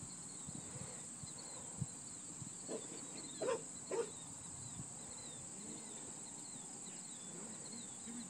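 Steady high-pitched chirring of insects in the grass, with a dog giving two or three short barks about three to four seconds in.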